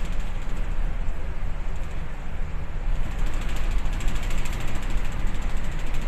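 Steady low rumble aboard a bulk carrier under way in rough sea, with a fast, even mechanical rattle over it.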